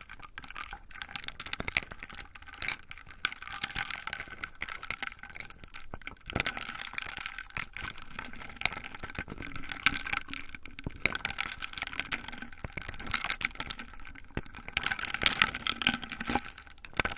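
Liquid pouring and filling a container, with many small clinks and taps throughout.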